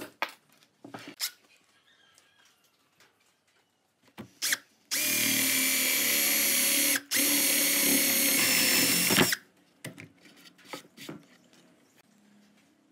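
Cordless drill boring a hole in a wooden board with a Forstner bit. The motor runs steadily for about four seconds, with a brief stop midway, and is preceded and followed by a few light knocks of the board and tools being handled.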